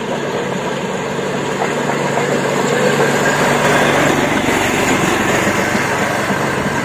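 Railway motor trolley's small engine running steadily as the trolley rolls along the track, getting a little louder over the first few seconds.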